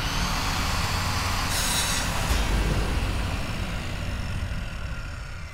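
Logo-reveal intro sound effect: a low rumbling noise with a burst of hiss about one and a half seconds in and a deep boom just after two seconds, starting to fade away near the end.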